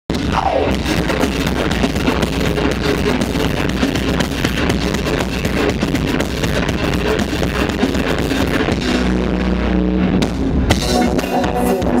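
Live metalcore band playing loud: distorted electric guitars over dense, driving drums. Near the end the band holds a chord for about a second before the drums crash back in.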